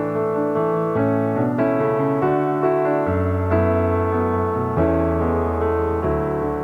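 Background piano music: a melody of short notes over held bass notes.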